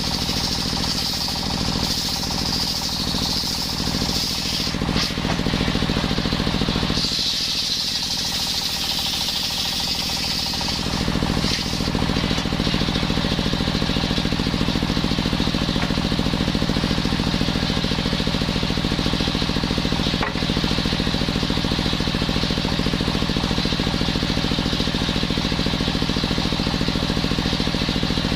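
Engine-driven circular saw running steadily with a pulsing engine note, its blade cutting coconut wood twice in the first ten seconds with a high-pitched cutting whine, then running free without a cut.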